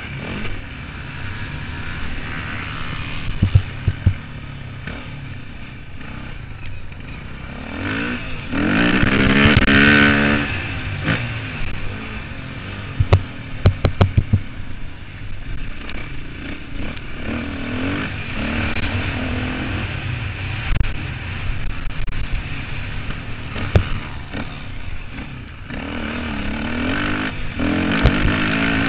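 Motocross motorcycle engines revving, their pitch rising and falling as the throttle opens and closes. The engines are loudest about a third of the way in and again near the end, with a few short sharp knocks in between.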